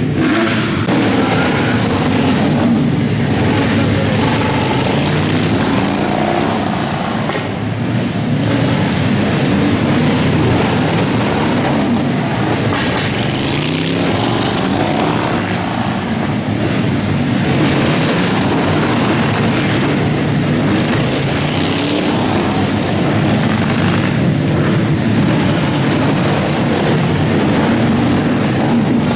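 Several motorcycles racing, their engines revving up and easing off again and again in overlapping rising and falling waves.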